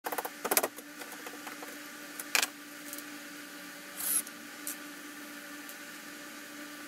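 Clicks and rattles from a strip of perforated metal strapping being handled and held against a plywood board, with a sharp knock a little over two seconds in. About four seconds in, a DeWalt cordless drill runs briefly, driving a screw through the strap into the board. A faint steady hum lies under it all.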